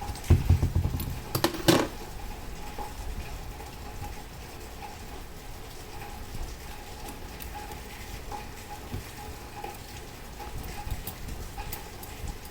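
Handling knocks and clinks: about a second of dull thumps with two sharp clicks near the start, then scattered faint small clicks over a faint steady hum.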